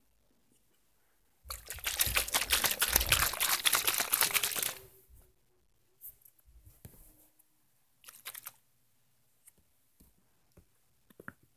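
Close rustling and handling noise: a loud scratchy rustle starting about a second and a half in and lasting about three seconds, then short soft rustles and a few light clicks as a hand goes through fleece blankets in a clear plastic tub.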